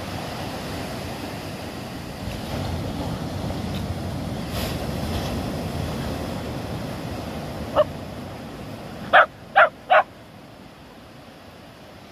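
A dog barks four times: a single bark about eight seconds in, then three quick barks about half a second apart, over a steady rush of surf and wind.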